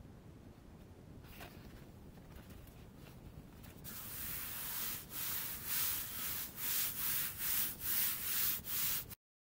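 A hand rubbing back and forth across a large sheet of paper, a dry swishing. It starts about four seconds in and settles into even strokes about two a second, then cuts off suddenly near the end.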